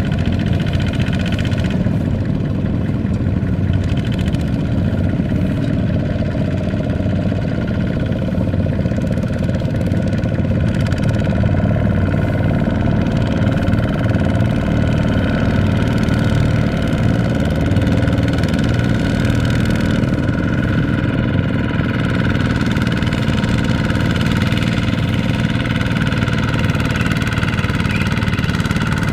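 Single-cylinder Kubota ZT155 diesel engine of a two-wheel walking tractor running steadily under load, while its mud-caked wheels churn through deep mud in a rice field.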